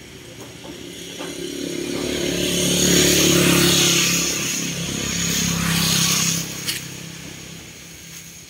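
A motor vehicle engine passing by. It grows louder over about two seconds, eases off, swells again, then fades away, with a sharp click as it fades.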